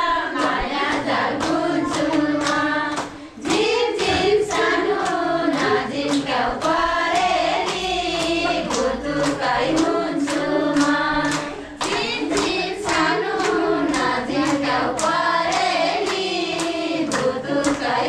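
A group of women singing a Nepali folk song together, with hand claps keeping a steady beat.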